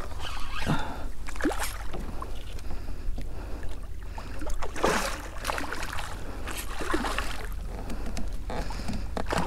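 Irregular splashes and sloshing of water at a kayak's side as a hooked redfish is played close in toward a landing net held in the water, over a steady low rumble.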